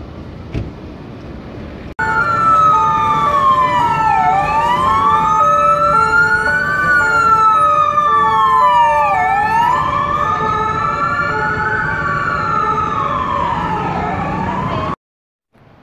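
Two emergency-vehicle sirens sounding together: an electronic wail gliding slowly up and down about every five seconds, over a two-tone siren alternating steadily between a high and a low note. They start suddenly about two seconds in, after a brief stretch of street noise, and cut off abruptly near the end.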